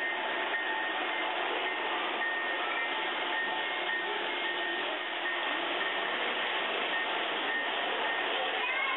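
Steady din of a crowded indoor exhibit hall, without clear speech, with faint short high tones that come and go.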